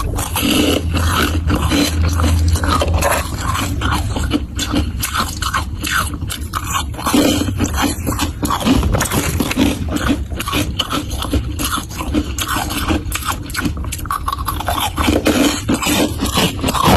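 Close-up biting and chewing of crunchy humidifier frost: rapid, dense, irregular crunches with no let-up.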